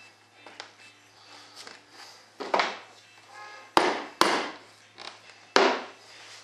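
Small hammer tapping a part into tight-fitting drilled holes on a moulded fibreglass piece. There are two light taps, then four sharp strikes with a brief ring, two of them in quick succession about four seconds in.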